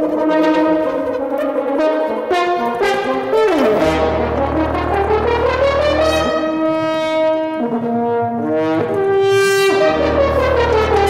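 French horn playing held notes with a second brass instrument, moving through one long slow glide that rises and falls back. A steady low drone from the electronics comes in about four seconds in and again near the end.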